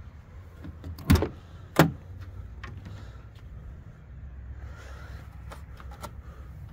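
Two loud clunks, about a second in and again under a second later, as the Jeep Wrangler's rear tailgate is unlatched and swung open, with a few faint clicks later over a low steady rumble.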